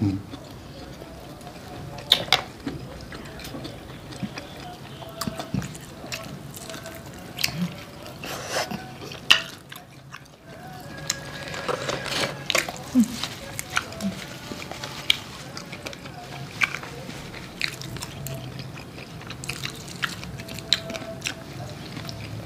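Close-up eating sounds: chewing of curry instant noodles and fried chicken, small slurps, and scattered light clicks of chopsticks and utensils against a bowl, with a few brief murmurs.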